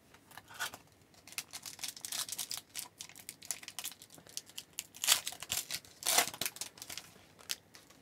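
Crinkling and tearing of a 2002-03 Topps hockey card pack wrapper as it is ripped open, a run of crackly rustles with the two loudest rips about five and six seconds in.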